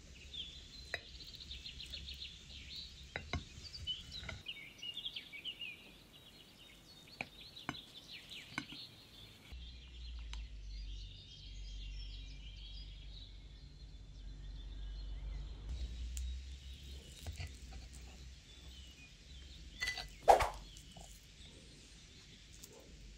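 Knife cutting through a baked chocolate cheesecake, with scattered light clicks of metal against the plate, over faint bird chirping and a low rumble. Near the end comes one sharp, louder clink of a utensil on a plate.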